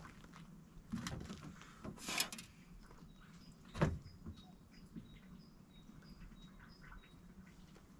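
Scattered knocks and rustles of hands working inside an empty refrigerator, the sharpest knock about four seconds in. From about three seconds faint, short, high bird chirps repeat at two alternating pitches.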